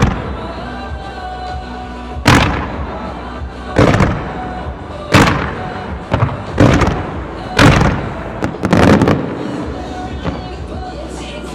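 Aerial fireworks shells bursting: six loud booms, each with a short crackling decay, spaced about a second or so apart over music played with the display.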